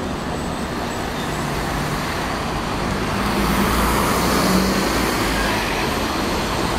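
Scania K94IB Irizar coach driving past, its engine note climbing as it pulls through the gears of its ZF automatic gearbox, loudest about four seconds in as it passes, over the steady noise of street traffic.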